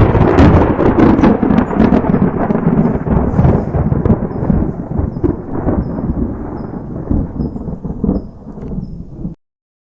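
A loud rumbling, crackling noise that starts abruptly, slowly fades over about nine seconds and then cuts off suddenly.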